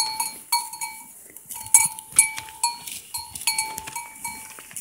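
A cowbell-type livestock bell clanking irregularly among grazing horses, its strikes coming several times a second on one ringing metallic note, mixed with short sharp clicks.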